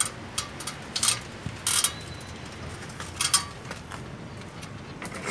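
Scattered clicks, scrapes and light metallic rattles of hand tools and fittings being handled at an air conditioner outdoor unit's service valves.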